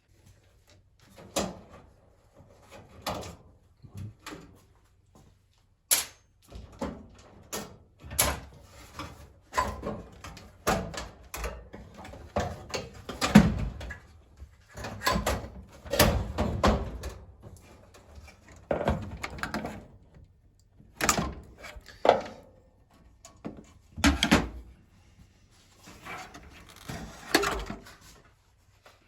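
Irregular knocks, clunks and scraping clatter of hands and tools working on a dryer's cabinet and parts, dozens of separate handling sounds, some loud.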